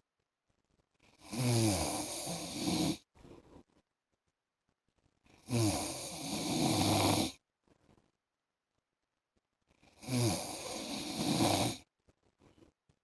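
A man snoring in his sleep: three long snores, each about two seconds and opening with a falling pitch, coming about every four and a half seconds. There is silence between them, broken by a faint short breath after each.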